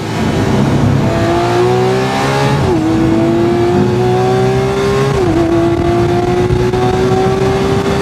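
Lamborghini Centenario's naturally aspirated V12 accelerating hard, its pitch rising through the gears, with two sharp upshifts about a third and two-thirds of the way in.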